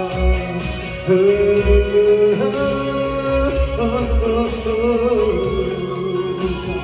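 A Vietnamese song with singing over deep bass notes, played through a pair of JBL active full-range speakers and an active subwoofer.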